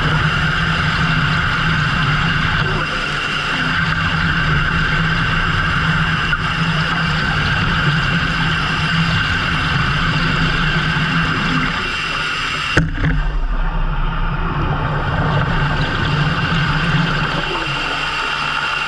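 A boat's engine running steadily, a low hum with a steady whine above it, changing abruptly about two-thirds of the way through as the highest sounds drop away.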